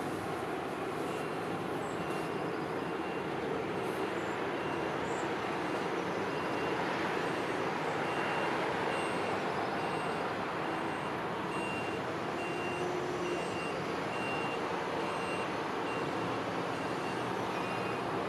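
Steady rumble of a passing inland tanker barge and its surroundings, swelling slightly midway as the vessel goes by. Over it, a reversing alarm beeps regularly at a high pitch, about once every half second, from about a second in.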